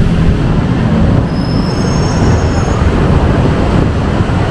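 Loud steady rumble of passing vehicles, with a thin, high squeal for about a second and a half starting about a second in.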